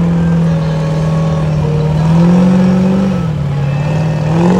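Mud truck engine running hard, its pitch climbing about two seconds in, dropping back a second later, and rising again near the end as the throttle is worked.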